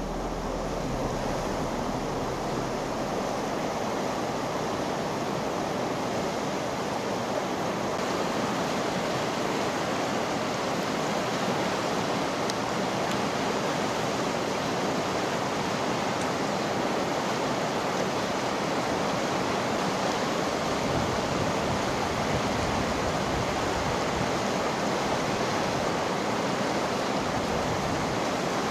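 Steady rushing of flowing river water, an even wash of noise with no bird calls standing out.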